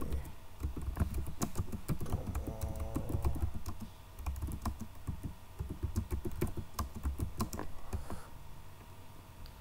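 Typing on a computer keyboard, a quick irregular run of key clicks that stops about eight seconds in.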